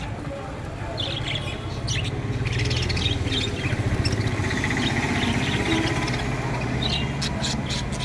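A colony of budgerigars chattering, with short high chirps and warbling over a steady low hum.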